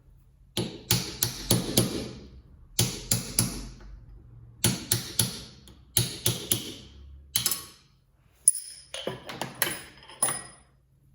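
Hammer tapping on metal in quick groups of two to five strikes with short pauses between them, each strike leaving a brief ringing. It is typical of knocking parts into or out of a grinder during repair.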